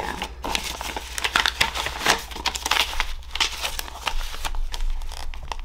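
Thick, aged paper and card pages of a handmade junk journal rustling, crinkling and scraping as hands tuck an insert back into a pocket and shift the pages, in an irregular run of crackles.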